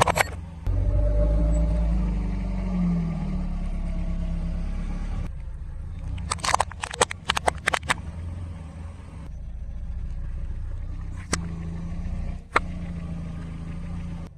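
A car engine running low and steady as the car rolls slowly. About six to eight seconds in there is a burst of sharp crackling, and two single sharp cracks come later: objects crunching and snapping under the tyre.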